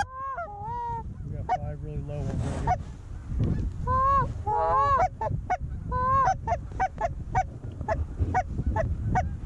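Canada goose honks and clucks: a few drawn-out honks, then from about halfway a fast run of short clucks, three or four a second.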